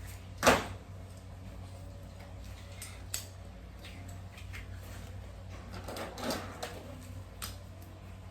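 Toys being handled and set down: one sharp clack about half a second in, then a few lighter clicks and knocks, with a small cluster a little after the middle.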